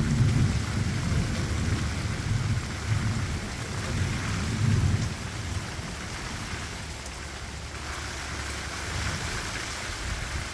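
Thunder roaring in a rumbling peal that fades away over the first five seconds or so, over the steady hiss of heavy rain falling.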